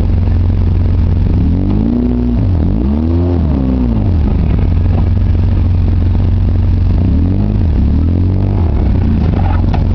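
2009 Polaris Ranger RZR 800's twin-cylinder four-stroke engine running on the move, its pitch rising and falling as it revs up and eases off, about two seconds in and again about seven seconds in.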